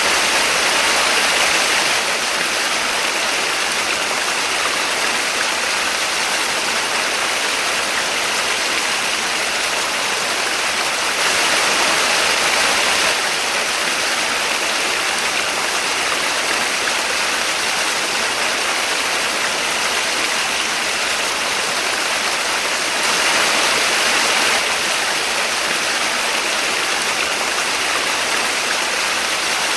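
Small waterfall: water falling and splashing in a steady rush, swelling slightly louder for a second or two three times, near the start, around the middle and about three quarters through.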